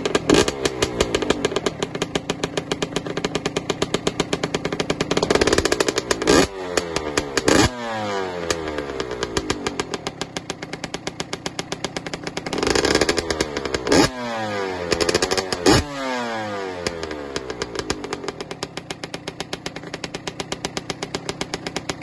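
TM SMR 125 Fi 2021's fuel-injected two-stroke single-cylinder engine running through a Pro Circuit Shorty R304 silencer. It idles with a rapid popping beat, is revved in several short throttle blips, and the pitch falls back each time the revs drop.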